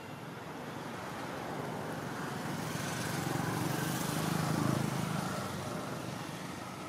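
A motor vehicle passing by: a steady rush of engine and tyre noise that swells to its loudest about four and a half seconds in, then fades away.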